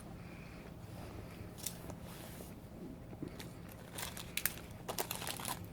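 Plastic snack packaging crinkling as it is handled: a few scattered crackles, then denser crinkling from about four seconds in.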